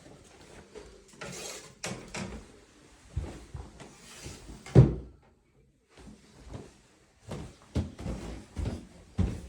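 Irregular knocks and thumps with rustling, the loudest a single sharp thump about five seconds in.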